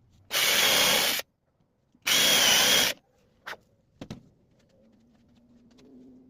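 Power drill with a countersink bit boring pilot holes in wood: two bursts of about a second each, with a high motor whine. A couple of short clicks follow.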